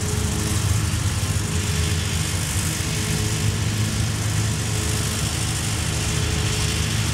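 Toro riding lawn mower's engine running steadily while mowing grass, mixed with the low rumble of a passing freight train.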